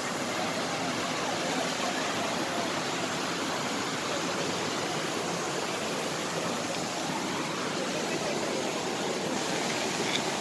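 Small waterfall cascading over rocks into a stream pool: a steady rush of water.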